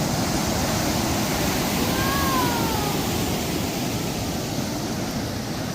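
Ocean waves breaking, a steady rushing noise of surf.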